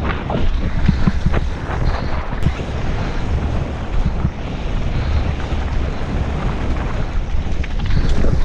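Mountain bike descending fast over a rough dirt trail: steady wind buffeting on the microphone with frequent short knocks and rattles from the bike over bumps and roots.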